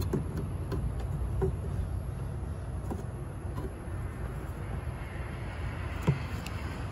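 Small screwdriver tip clicking and scraping against a headlight bulb's plastic wiring connector as its clips are pried loose. The light clicks are scattered, with a sharper one about six seconds in, over a steady low rumble.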